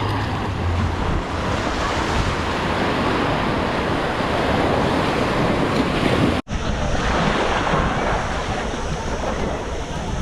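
Sea waves washing onto the shore with wind buffeting the microphone, a steady rushing noise. The sound cuts out for an instant about two-thirds of the way through.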